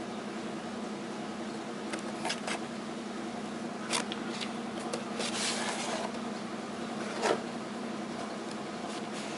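Light handling noises, a few scattered clicks and rustles, over a steady low background hum. No alarm beeping is heard.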